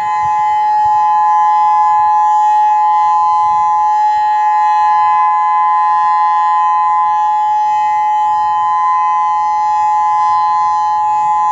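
Outdoor civil defense warning siren on a tower, sounding a loud, unwavering steady tone of two close pitches with no rise or fall. This is the steady alert signal of a statewide warning-siren test, not the wailing attack tone.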